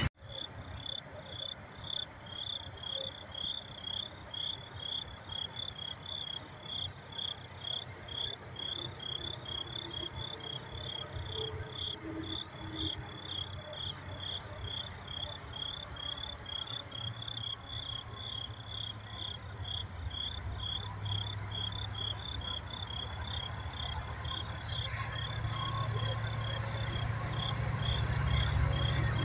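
Crickets chirping steadily, about two chirps a second. In the last several seconds the low rumble of an approaching diesel freight train grows louder underneath.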